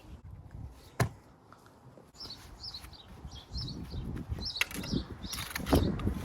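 Stone walling work: a sharp knock about a second in, then knocks and scraping of stone, with short high squeaks repeating from about two seconds in.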